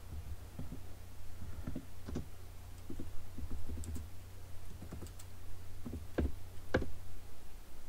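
Typing on a computer keyboard: irregular keystrokes, a few clicks a second with pauses, over a steady low hum.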